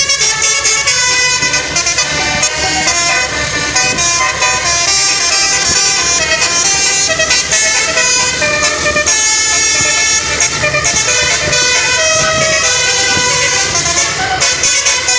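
Basuri multi-tone bus horn playing a tune: a continuous run of loud horn notes stepping from pitch to pitch.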